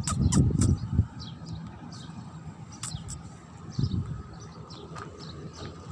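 Small birds chirping in short, high, falling notes scattered throughout. A few crunches and scuffs of shoes on gravel come near the start and again around three and four seconds in.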